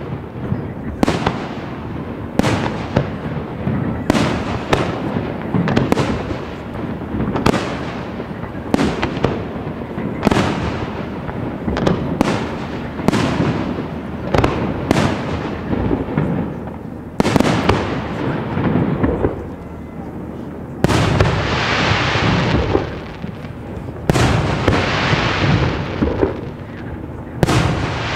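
Large professional fireworks display: aerial shells bursting in quick succession, about one sharp, echoing bang a second. In the last third come three longer, louder noisy bursts of two to three seconds each.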